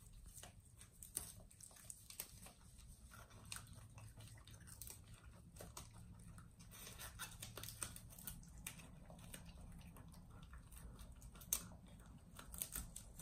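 Faint chewing and tearing of fresh dandelion greens by a beagle and a rabbit eating side by side: soft scattered crunches and leaf rustles, with one sharper click near the end.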